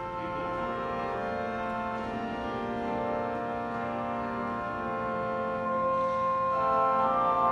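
Pipe organ playing a slow prelude in long, sustained chords. It grows louder on a new chord about six seconds in.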